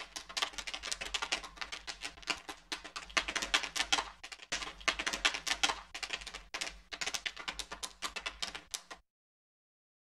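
Popcorn kernels popping in a dense, irregular rush of sharp clicks that cuts off suddenly about nine seconds in.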